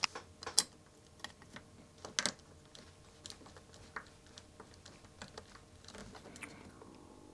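A DIP chip's metal legs clicking and tapping against a 3D-printed plastic IC pin straightener as the chip is pressed and rocked in it to straighten its bent pins. An uneven scatter of light clicks, with a few sharper ones in the first couple of seconds.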